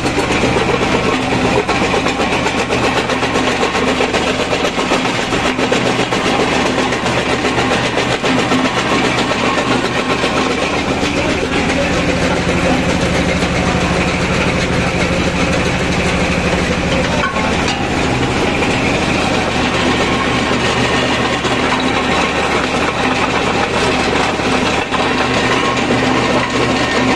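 Small belt-driven stone jaw crusher running steadily, crushing rocks in its jaws down to gravel with a dense, rapid rattling clatter over a steady drone.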